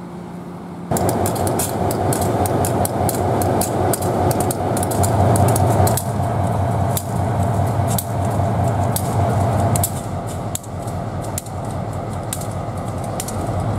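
EMD SW1500 switcher locomotive's 12-cylinder diesel engine idling, a steady low drone, with many sharp ticks and clicks over it. The sound starts abruptly about a second in and steps down slightly about six and again about ten seconds in.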